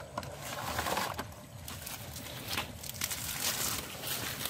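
Water hyacinth stalks and leaves rustling and wet mud squelching as a barefoot man digs by hand and steps through the tangled plants, in a few uneven swells, the loudest about three and a half seconds in.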